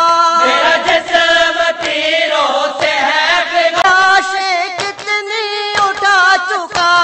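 Urdu marsiya, a Muharram elegy, chanted in a slow drawn-out melody, the notes held long with a wavering vibrato and brief breaks for breath.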